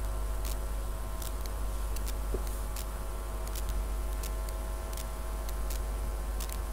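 Steady low electrical hum with faint, slightly irregular ticking clicks, about two a second.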